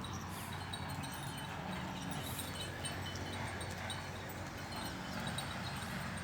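Small bells tinkling in scattered, irregular strokes over a steady low hum.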